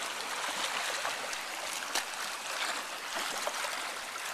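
Water splashing from a swimmer's freestyle arm strokes and kick: a steady churning wash with short louder splashes, one standing out about two seconds in.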